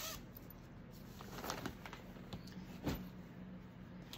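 Quiet room with faint handling noises from cross-stitch projects and supplies: a few soft clicks and rustles, the clearest about a second and a half and about three seconds in, after a short faint rising squeak at the start.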